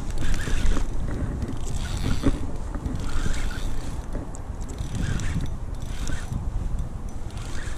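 Penn Slammer III spinning reel being wound in against a hooked fish, its gears and line working in repeated short spells, with wind buffeting the microphone.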